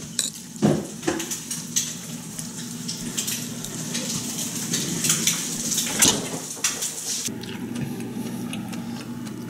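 Metal spoon scraping and clinking against a ceramic plate while scooping fried rice, with sharp clinks under a second in, at about one second, and again around six seconds.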